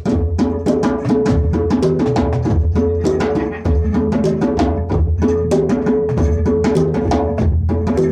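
Group hand-drum jam: fast, steady strikes, several a second, over a low sustained drone.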